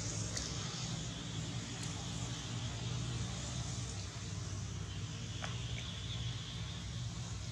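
Steady outdoor background: a low, even hum under a high, steady hiss like insects, with a couple of faint ticks.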